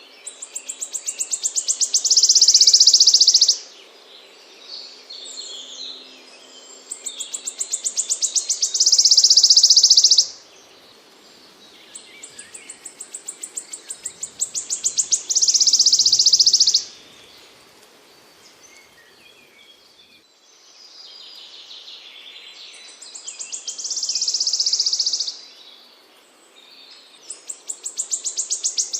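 Small songbird singing the same phrase over and over, about every six seconds: a run of quick high ticking notes that speeds up and runs into a loud, high buzzy trill. Fainter chirps from other birds fill the gaps.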